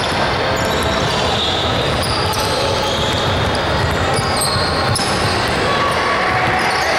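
Basketball dribbled on a hardwood gym floor, over a steady background of gym noise.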